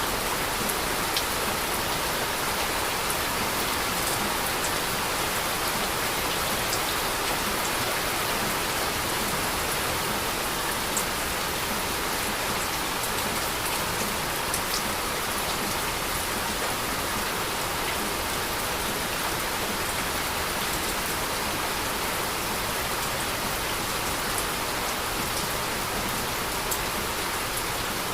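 Steady heavy rain falling on surfaces, an even hiss with scattered faint drop ticks.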